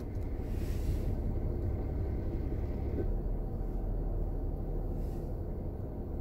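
Steady low rumble inside a car cabin, with a brief soft hiss about half a second in.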